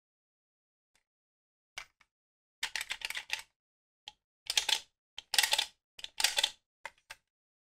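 Plastic parts of a Bandai DX Desire Driver toy belt being handled: irregular clusters of short clicks and clacks, with silence between them.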